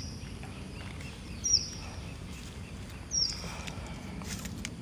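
A bird calling: a short, high, falling note repeated at an even pace, about every second and a half, over a low steady hum.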